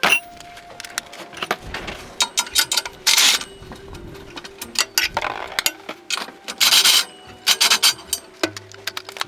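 Hand-tool work on metal car parts: a string of sharp clinks and knocks with several scraping, rasping strokes, the longest about three seconds in and another near seven seconds.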